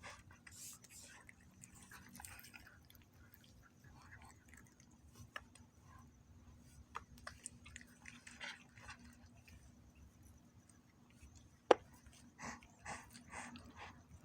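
Cats eating a snack, a scatter of faint crunching chews, with one sharp click near the end.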